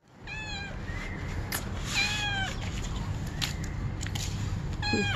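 Cat meowing three times: a short meow, a longer and louder one about two seconds in, and a brief one near the end, each rising and then falling in pitch.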